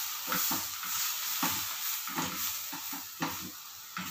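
Slotted spatula stirring and turning shrimp and vegetables in a nonstick frying pan, with irregular scrapes and knocks against the pan over a steady sizzle of frying.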